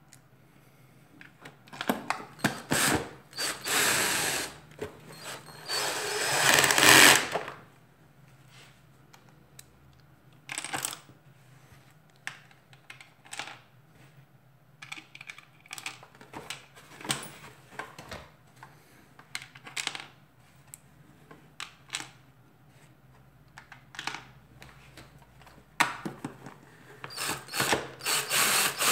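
Plastic housing parts of a Dyson DC37 vacuum cleaner being handled and pressed into place: loud scraping and rubbing in bursts over the first seven seconds, then scattered clicks and knocks, and another burst of scraping near the end.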